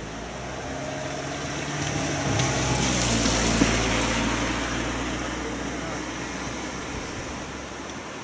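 A vehicle's low hum and hiss swelling for a few seconds and fading away again, loudest about three to four seconds in.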